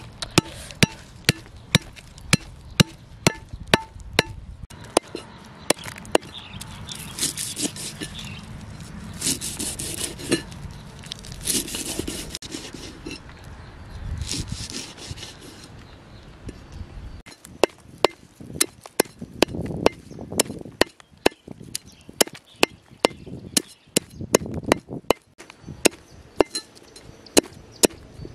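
Large knife chopping lemongrass stalks on a chopping block: a run of sharp, evenly spaced chops, about two a second at first and quicker near the end. Partway through, the chops thin out and softer scraping and rustling take their place for several seconds.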